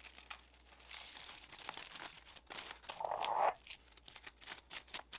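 Aluminium foil crinkling and crackling as hands unwrap a foil-wrapped meat roll, with a louder half-second rustle of the foil about three seconds in.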